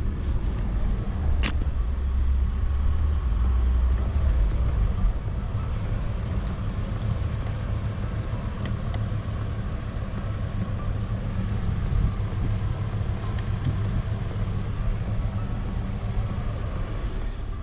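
Vehicle engine idling steadily, running to charge a dead truck's batteries through jumper cables. One sharp click about a second and a half in.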